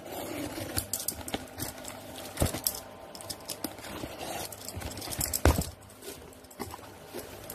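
Cardboard shipping box being handled: crackling and rustling of cardboard and packing tape with many small sharp clicks, and two louder knocks, about two and a half and five and a half seconds in.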